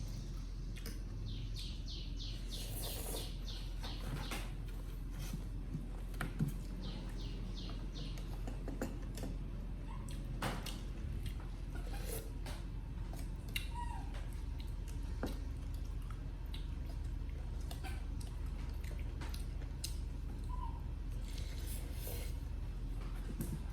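A run of quick high chirps, about four a second, for a few seconds near the start, with scattered small clicks and taps over a low steady hum.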